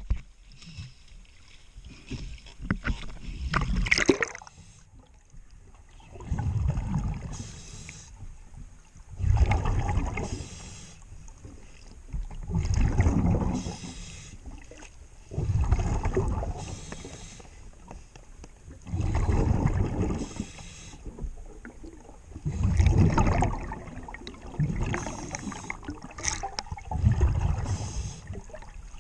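A scuba diver breathing through a regulator underwater: regular rushes of exhaled bubbles, about eight of them, roughly every three and a half seconds, with quieter hiss between.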